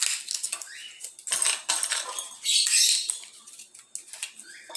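Dry fava (lima) bean pods being broken open by hand: irregular papery crackling, with the hard seeds clicking as they drop onto a ceramic plate.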